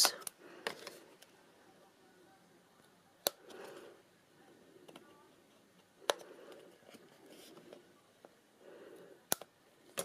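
Small scissors snipping tiny triangles out of patterned paper: about four sharp snips a few seconds apart, with soft rustling of the paper as it is turned between cuts.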